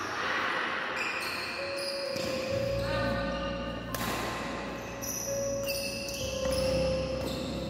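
Badminton doubles rally: rackets hitting a shuttlecock and players' shoes on the court floor, with a sharp racket smash about four seconds in.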